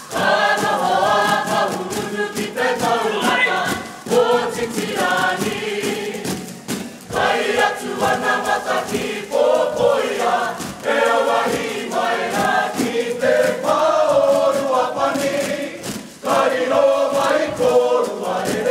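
A kapa haka group singing a Māori song together, many voices in unison, in phrases with short breaks between them.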